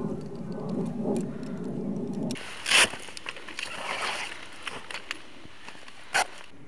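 A low steady rumble that cuts off about two and a half seconds in. It is followed by rustling and swishing of nylon parachute canopy fabric being bundled up by hand, with two short, loud swishes about three and a half seconds apart.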